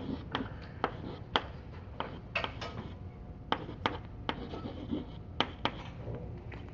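Chalk writing on a blackboard: a string of short, sharp chalk taps and scratches, two or three a second, irregular in rhythm.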